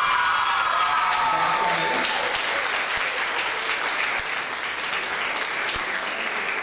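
Audience applauding steadily, easing off a little in the second half. A high tone falling in pitch sounds over the clapping in the first two seconds.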